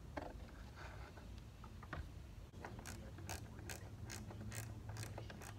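Hard clicks and knocks as a blower motor is handled and fitted into its plastic housing, with a run of sharp clicks about three a second in the second half, over a low steady hum.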